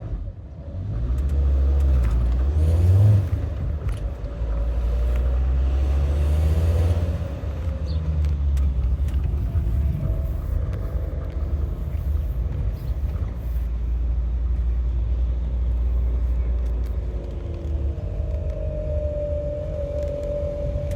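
A high-mileage petrol Volkswagen T5 van running with a low rumble and an unexplained squeak. A steady squealing tone comes in about 18 seconds in and holds.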